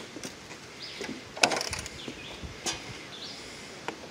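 Hand tin snips cutting a V into a metal roof vent's flange: a few sharp snips, the loudest about one and a half seconds in. Birds chirp in the background.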